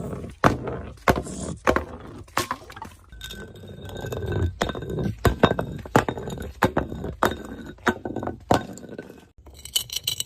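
Glass being struck and broken: a series of sharp clinks and cracks, about one or two a second, with a clear ringing tone behind them from about three seconds in.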